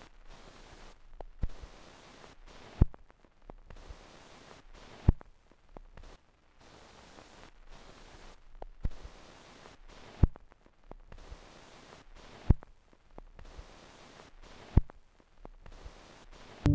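Single typewriter keystrokes, sharp clicks spaced about two seconds apart, over a faint hiss that keeps cutting in and out.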